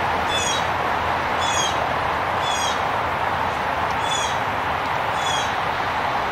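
A bird calling over and over, a short high call about once a second, over a steady hiss.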